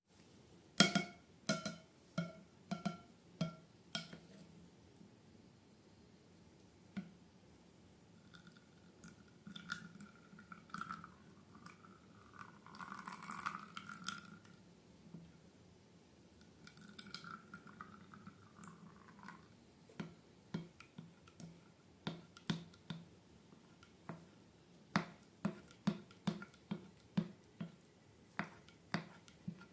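Slime-making handling sounds: runs of sharp taps and clicks at the start and again from about two-thirds of the way in, with a longer wet, squishy stretch in the middle as balloon filling and slime are squeezed and poured.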